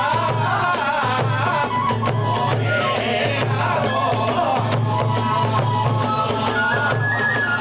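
Kagura hayashi ensemble playing: a bamboo flute holds a high melody that moves in steps, over fast, continuous clashing of small hand cymbals and a steady drum beat.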